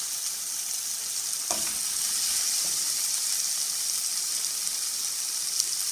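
Chopped onions, tomatoes and green chillies sizzling steadily in hot oil in a pan, with cumin seeds just dropped in. A light knock sounds about a second and a half in.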